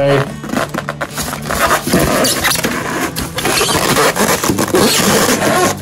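Expanded polystyrene packing pieces squeaking and scraping against each other as they are pressed and worked into place around a turntable, in short irregular rubs.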